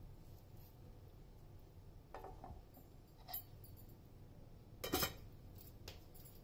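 A few separate clinks and knocks of kitchen utensils against crockery, the loudest about five seconds in.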